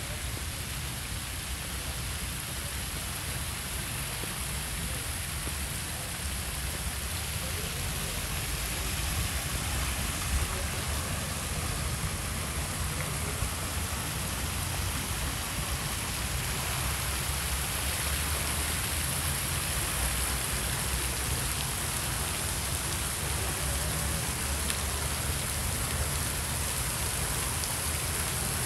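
Steady hiss of falling water, a little louder from about nine seconds in, over a low rumble.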